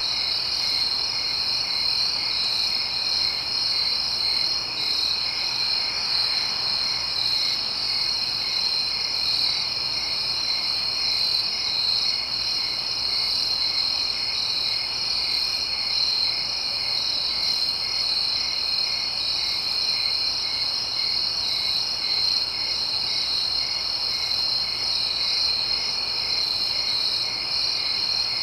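Steady night chorus of crickets and frogs: an unbroken high insect trill with a short call repeating at an even pace beneath it.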